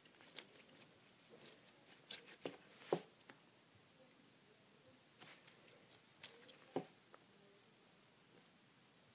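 Sticky toy goo being pulled and torn apart by hand: scattered soft clicks and crackles, the loudest about three seconds in, fading out after about seven seconds.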